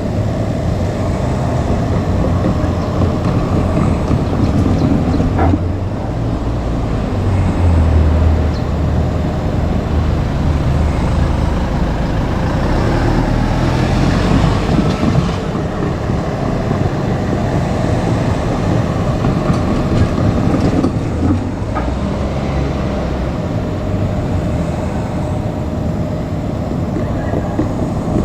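JR Kyushu 817 series electric train running, a steady low rumble that swells and eases.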